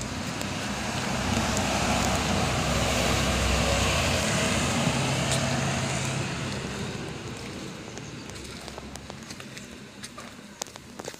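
A motor vehicle passing by, its engine and tyre noise swelling over a few seconds and then fading away. A few faint ticks follow near the end.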